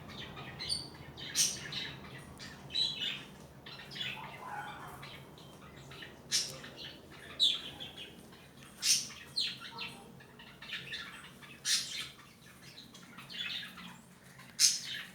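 Birds chirping and squawking in short, sharp calls, spaced irregularly about once a second, over a faint steady hum.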